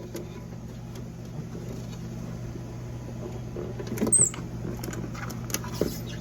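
Richardson's ground squirrel being handled with a glove for examination: soft rustling and scuffling with a few light clicks, and one brief high chirp about four seconds in, over a steady low hum.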